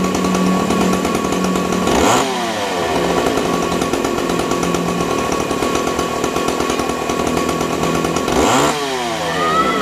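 Chainsaw engine running loud and steady, revved hard twice, about two seconds in and again near the end, each rev dropping back down to the running note.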